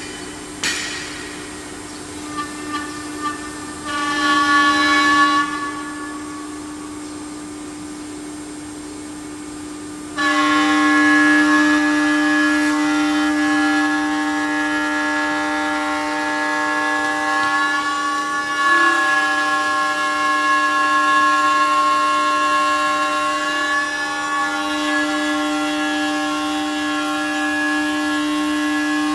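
STM1325CH CNC router's spindle running with a steady whine, cutting into a wooden door panel. About ten seconds in the cut gets suddenly louder, a whine of several tones that dips slightly now and then; a shorter louder burst of cutting comes about four seconds in.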